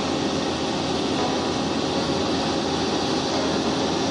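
Heavy machinery engine running steadily at an even level, with a dense low hum.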